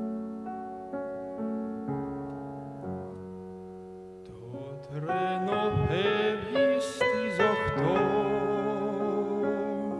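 Grand piano playing slow held chords, a new chord about every second; about halfway through a man's tenor voice comes in, singing long notes with vibrato over the piano.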